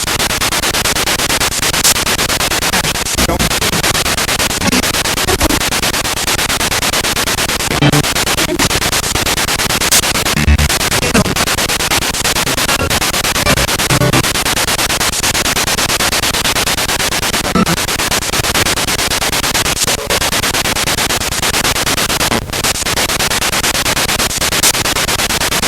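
Spirit box radio sweeping through stations: a loud, steady hiss of static, broken every so often by short dropouts and brief fragments of broadcast sound.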